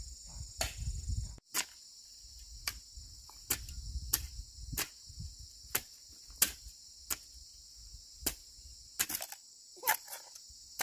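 Steady high trilling of insects, crickets by their sound, with a run of sharp knocks, about one a second and irregularly spaced.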